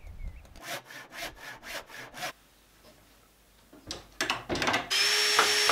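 Timber being sawn by hand: a run of quick, even saw strokes, about five a second. After a pause come a few more strokes, then a loud steady noise with a held whine near the end that cuts off suddenly.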